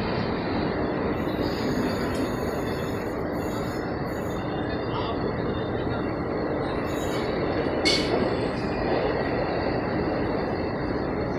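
Train running along the track, a steady rumble of wheels on rails with faint high-pitched wheel squeals coming and going.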